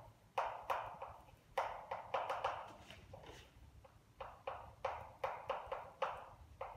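Chalk writing on a blackboard: a run of short, uneven taps and scratches, about two or three a second, with a brief gap a little past the middle.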